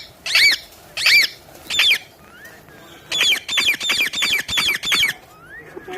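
Pet parrot squawking: three separate arching screeches in the first two seconds, then a fast run of about seven short squawks.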